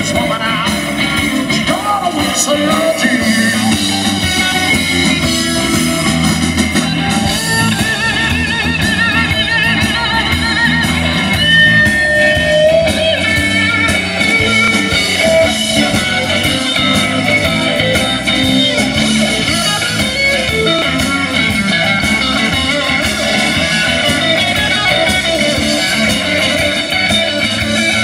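Live roots rock-and-roll band playing an instrumental break: an electric guitar lead with bent, wavering notes over bass guitar and drums.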